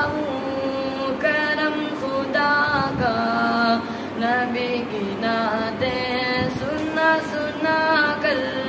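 A boy's solo voice singing an Urdu naat unaccompanied, holding long notes that bend in pitch.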